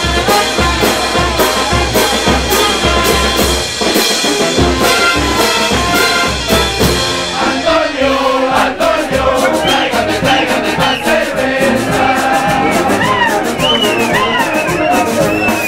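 Andean festival brass band playing, trumpets and trombones over a steady drum beat. About halfway through the drum beat drops out and the melody carries on without it.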